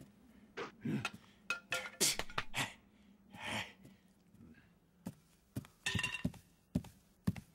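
Scattered sharp knocks and clinks, a dozen or so, some with a brief ring after them, and a short hiss-like swish about three and a half seconds in.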